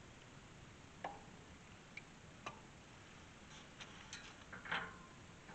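A few light, separate metallic clicks and taps from pliers working a screw-in gate hinge pin into a wooden post, with a small cluster of knocks near the end.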